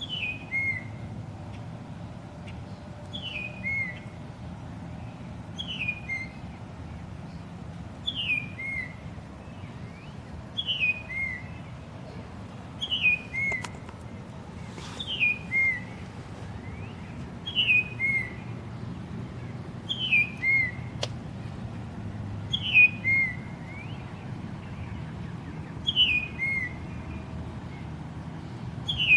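A bird whistle sounding a bald eagle call over and over: a sharp whistle sliding down, then a short lower note, repeated evenly about every two and a half seconds.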